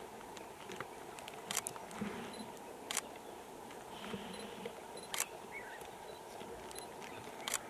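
Scattered sharp clicks, some in quick pairs, over a steady low hiss.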